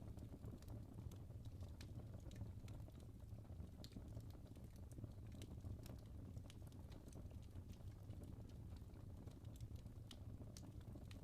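Wood fire burning in a fireplace, crackling softly: irregular sharp ticks and pops scattered over a low, steady rumble of the flames.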